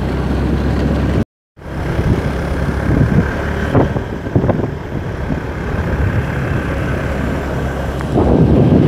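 Motorcycle engine running steadily under load on a continuous uphill climb, heard from the rider's seat. The sound cuts out completely for a moment about a second in and gets louder near the end.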